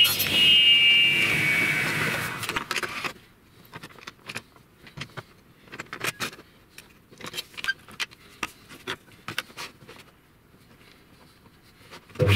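Table saw whining down in pitch after being switched off, then scattered sharp clicks and knocks as laminated plywood strips are handled on the saw table and crosscut sled. The saw motor starts up again with a thump near the end.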